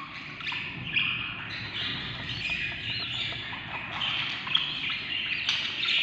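A brood of baby budgerigar (parakeet) chicks calling together in a steady chorus of many short, overlapping high chirps: the begging calls of hungry nestlings.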